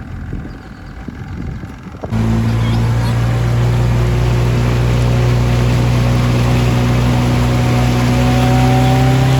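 Wind buffeting the microphone with a low rumble, then about two seconds in a loud boat engine running under way, its drone rising slowly in pitch as it gathers speed.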